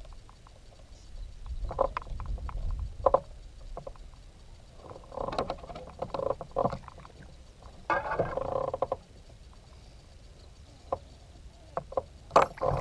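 Scattered knocks and clicks, with two short scraping, rustling stretches about five and eight seconds in: gear being handled in a small fishing boat.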